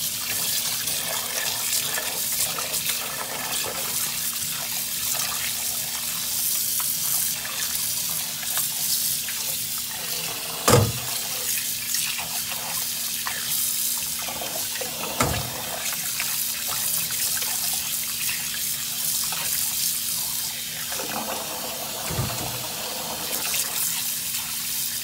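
Tap water pouring into a large metal pot of water while a hand swishes salted fish in it, rinsing off the brine: steady running and splashing water. A few short knocks, the loudest about eleven seconds in.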